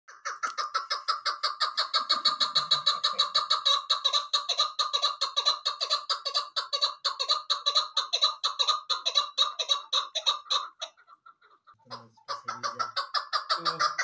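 Chukar partridge calling in a steady, rapid run of short repeated notes, several a second. It breaks off about eleven seconds in and starts again a second or so later.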